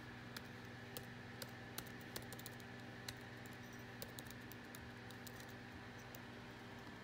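Fingers typing on a MacBook Air laptop keyboard: faint, irregular key clicks, coming quickly for the first few seconds and then only now and then.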